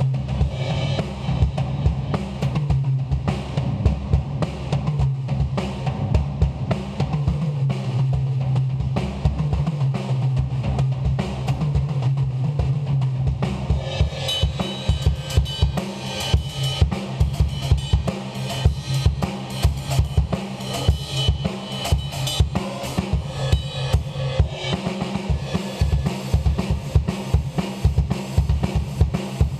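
Mapex drum kit played continuously: fast bass drum, snare and tom strokes, with the cymbals coming in more strongly about halfway through.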